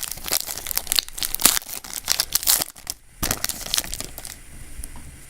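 Foil wrapper of a Yu-Gi-Oh! booster pack being crinkled and torn open by hand, in dense crackling rustles with a short pause about three seconds in, then fading down near the end.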